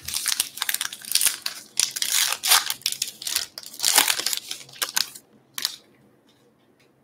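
Baseball card pack wrapper being torn open and crinkled by hand: a dense run of crackling tearing for about five seconds, then one short crinkle and quiet.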